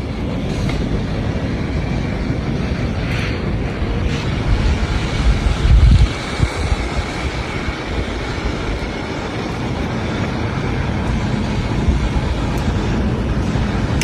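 Blizzard wind buffeting the microphone: a steady low rumbling roar that swells in a gust about six seconds in.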